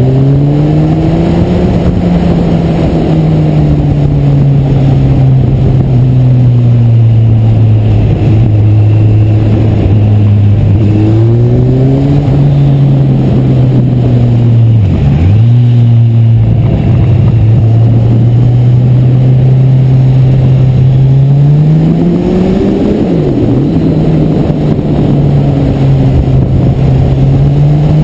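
Kawasaki Z1000SX's inline-four engine running under way, its pitch rising and falling with the throttle through the bends. The revs dip sharply and briefly about halfway through and again about three-quarters of the way through.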